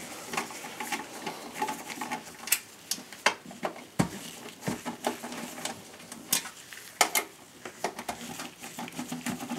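Irregular small clicks and light metallic clinks as a Phillips screwdriver backs out the power supply's retaining screws from a steel desktop PC chassis.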